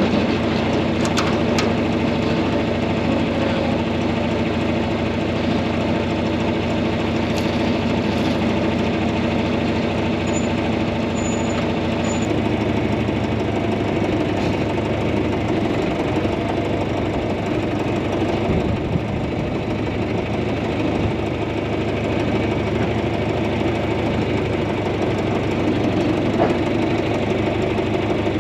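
A tractor engine runs steadily with the grain grinder-mixer. Its note shifts about halfway through.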